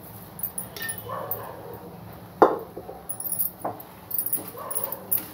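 A steel spoon stirring in a pan, with a sharp clank about halfway through and a lighter knock a second later. Short animal whines sound in the background.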